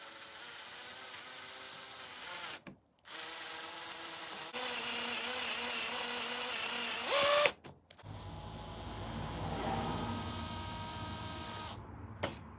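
Electric drill drilling into a toy's plastic battery door to deepen a magnet hole. It runs in three bursts with short stops between them. The pitch rises briefly just before the second stop, and the last burst is deeper.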